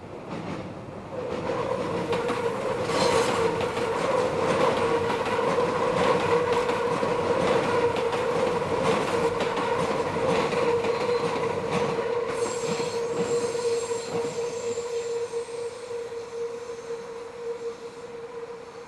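Meitetsu electric train wheels squealing in a long steady screech as the train takes a tight curve, with clacking of wheels over rail joints as the cars pass. A fainter, higher squeal joins about two-thirds of the way through, and the sound eases off near the end.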